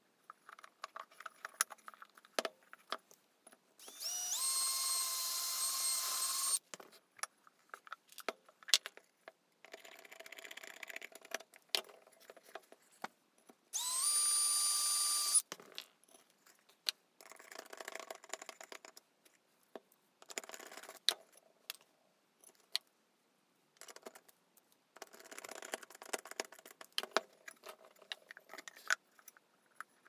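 Cordless drill running twice, a few seconds in and again about halfway, each run winding up quickly to a steady whine that lasts about two seconds. Between the runs, clicks and knocks as tools and the terracotta pot are handled.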